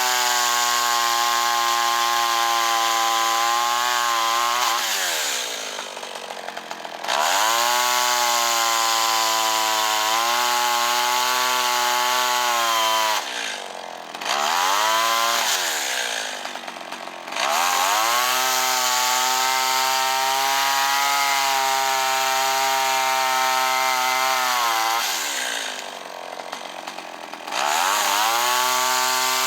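Kyoritsu CS-362 two-stroke chainsaw engine running again after its ignition repair. It is held at high revs for several seconds at a time, four times, dropping back toward idle and revving up again between.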